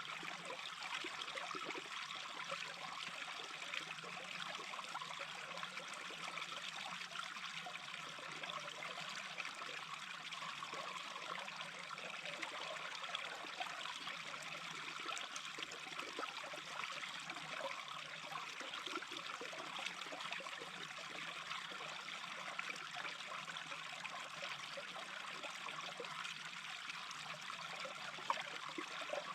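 A small brook babbling steadily: continuous trickling, gurgling water with no breaks.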